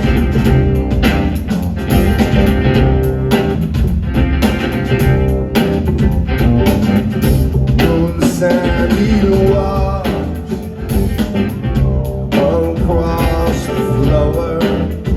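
Live band playing amplified rock music: drums and bass with guitar over a steady beat.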